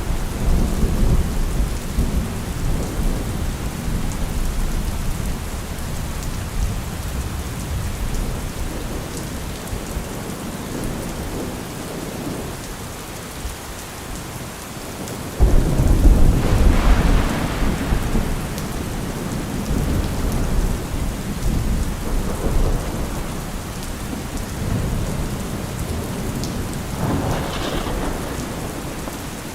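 Steady rain with thunder: a low rumble fades over the first several seconds, then a sudden, louder thunderclap about halfway through rolls on and dies away, with a fainter crackle of thunder near the end.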